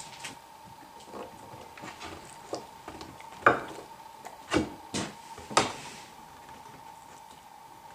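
A beagle rearing up at a wooden table after carrots: a few sharp knocks and crunches about a second apart, the loudest about three and a half seconds in, over a faint steady hum.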